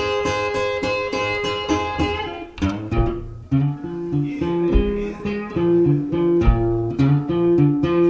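Blues guitar played with no singing. Chords ring out for the first couple of seconds, then after a short dip a picked figure with a repeating bass line takes over.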